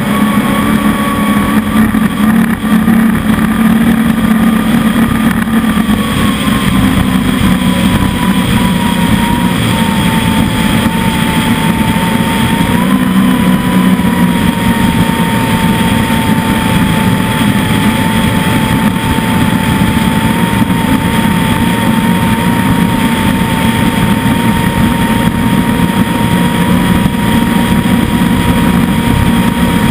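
Catamaran speedboat's engine running steadily at speed, with rushing wind and water noise. A whine in the engine note eases a little lower in pitch several seconds in, then holds steady.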